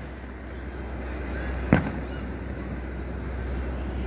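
A single firework bang about two seconds in, with a short echoing tail, over a steady low background rumble.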